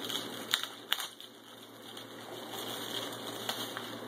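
Paper and clear plastic wrap rustling and crinkling as sheets are handled and lifted, with a couple of sharp crisp clicks about half a second and a second in.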